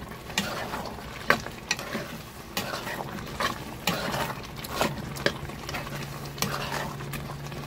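A metal spoon stirring a pot of simmering callaloo with pigtails, clinking and scraping against the pot at irregular moments over the sizzle and bubble of the simmer. A steady low hum comes in about five seconds in.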